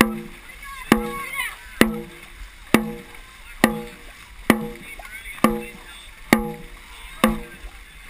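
Dragon boat drum struck in a steady beat, a little faster than once a second, each hit followed by a short booming ring. The beat sets the paddlers' stroke rate.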